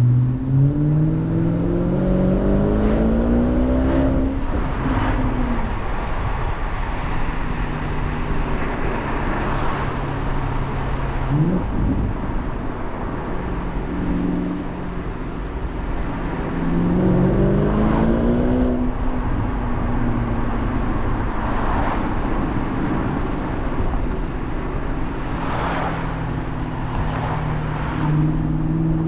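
BMW 650i's 4.8-litre V8 pulling through city traffic: the engine note rises steadily as the car accelerates in the first few seconds and again around two-thirds of the way through, with a short blip near the middle and a steadier drone near the end. Tyre and road noise run underneath throughout.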